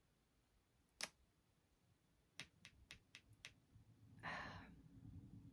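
Near silence with a few faint clicks: one about a second in, then a quick run of five or six, followed by a soft breath near the end.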